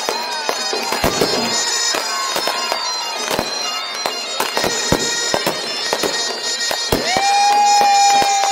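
Fireworks going off: repeated sharp bangs and pops mixed with whistling shells that glide in pitch. About seven seconds in, a single long, steady whistle starts and carries on past the end.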